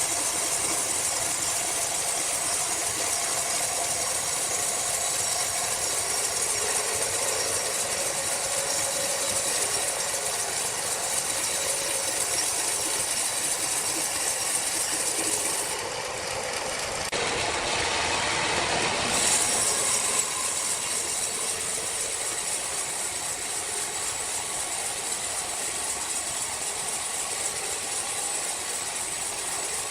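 Sawmill machinery running with a steady mechanical noise. The sound changes for a few seconds about sixteen seconds in.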